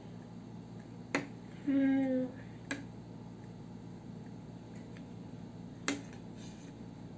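A metal spoon and fork clinking against a plate as food is scooped: three sharp clicks a few seconds apart. A child gives a short 'mm' about two seconds in.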